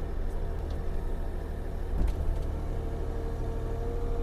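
2021 Bobcat E42 mini excavator's diesel engine running under load with a steady low rumble as the machine climbs a dirt ramp, with a thin steady whine that grows stronger in the second half. There is a single knock about two seconds in.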